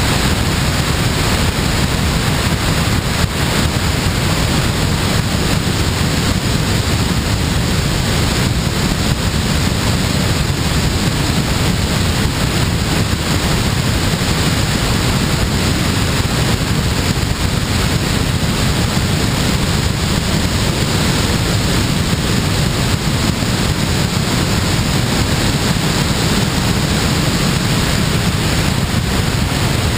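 Steady rush of wind over a wing-mounted camera microphone on a glider in flight.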